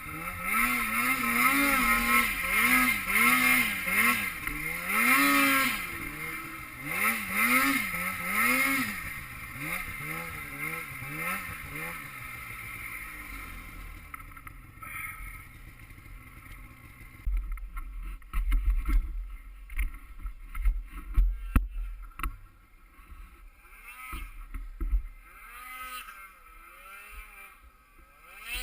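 Snowmobile engine revving up and down over and over for the first dozen seconds, then fading away. After that, a low rumbling with scattered knocks takes over, and the engine comes back faintly near the end.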